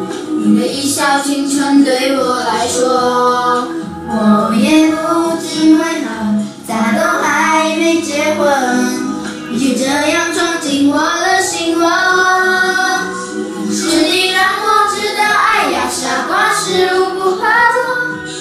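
A small group of children, boys and a girl, singing a song together.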